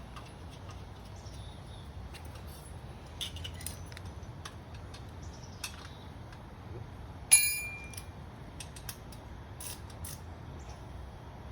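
Small metallic clicks and clinks of hand tools and exhaust hardware while a heat shield is fitted to a motorcycle exhaust pipe, with one sharp ringing metal clink about seven seconds in.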